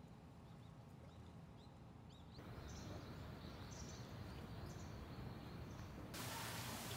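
Faint outdoor ambience with a few short, high bird chirps in the middle. About six seconds in it changes abruptly to a louder, steady hiss.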